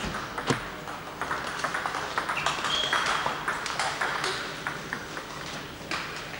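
Table tennis balls clicking off bats and tables, many irregular clicks from several tables at once, the loudest about half a second in. A brief high squeak sounds near the middle.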